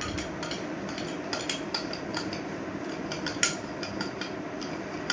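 A spoon beating instant coffee, sugar and a little hot water into a paste in a ceramic mug: a steady scraping with many small clinks against the mug's sides, one louder clink about three and a half seconds in.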